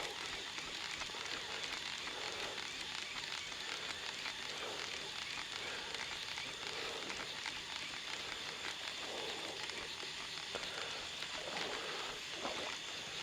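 Steady outdoor crackling hiss with a faint, continuous high-pitched tone above it.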